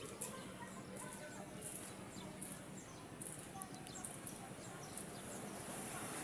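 Faint steady background noise with scattered short high-pitched chirps.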